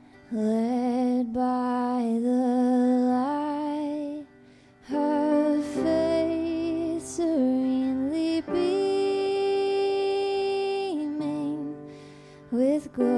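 A woman singing a slow, gentle song, holding long notes with vibrato, with a brief pause between phrases about four seconds in.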